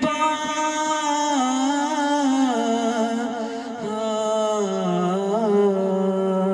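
A solo male voice singing devotional Urdu verse into a microphone, with no accompaniment, drawing one word out into a long held melisma. The note steps down in pitch several times, with a brief wavering ornament about five seconds in, and settles on a lower held note near the end.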